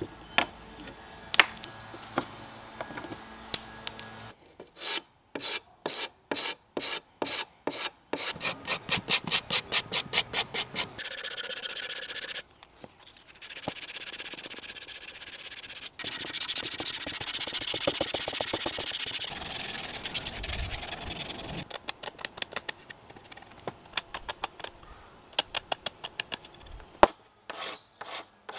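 Old finish being scraped off turned wooden chair spindles by hand: quick repeated scraper strokes, about three a second, with two stretches of steady sandpaper rubbing on the wood in the middle.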